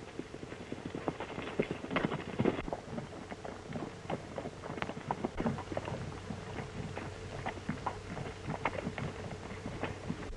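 Horse hooves clip-clopping in an irregular stream of knocks over a steady low hum, on an old film soundtrack.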